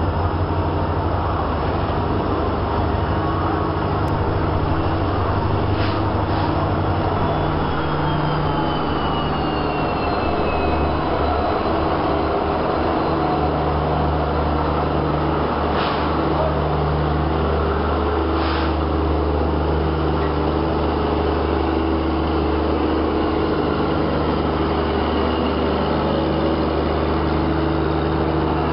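An EMD WDP4 diesel-electric locomotive's 16-cylinder two-stroke engine running with a steady low drone as the locomotive and its coaches roll slowly past along the platform. A few sharp knocks are heard, and a thin whine falls in pitch about eight seconds in.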